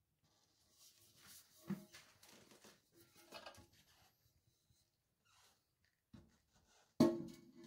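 A few quiet knocks and rustles against a porcelain toilet. The loudest is a sharp knock near the end that rings briefly on one tone.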